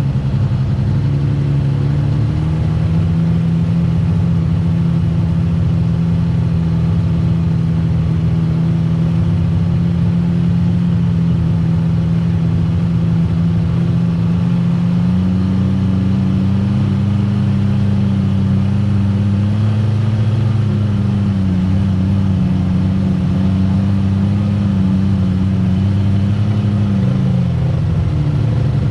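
Side-by-side UTV engine running under way, holding a steady pitch, then revving a little higher about halfway through and easing back down near the end.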